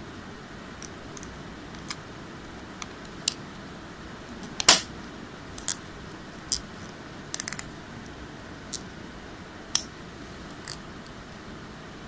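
Plastic case of an Apple 85 W MagSafe power adapter handled in the hands: scattered light clicks and taps, about ten of them, one louder about halfway through, over a steady low hiss.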